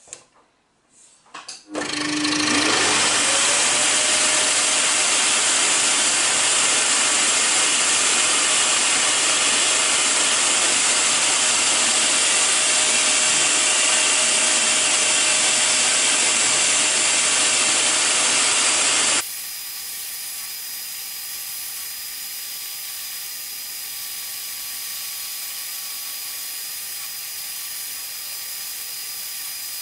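Hegner scroll saw starting up about two seconds in, a rising whine as its motor is sped up, then running steadily as its fine reciprocating blade cuts birch plywood. About two-thirds of the way through, the sound drops suddenly to a quieter, steadier level as the cutting goes on.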